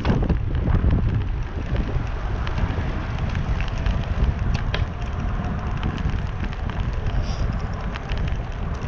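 Wind rushing over the microphone of a camera on a moving bicycle's handlebars: a steady low rumble, with a few faint clicks about halfway through.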